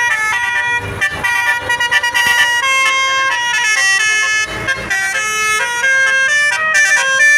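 Basuri telolet horn, a multi-tone bus horn, playing a melody of held notes that step from one pitch to the next every fraction of a second. There are brief low rumbles underneath about one second and nearly five seconds in.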